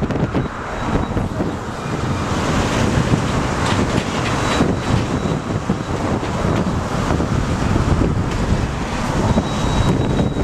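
Wind buffeting the microphone over the steady rumble of a Herzog rail maintenance train rolling slowly past on the track.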